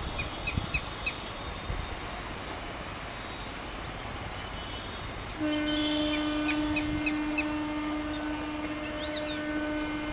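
A locomotive horn sounds one long steady note starting about five seconds in, over a low rumble from the train, with birds chirping.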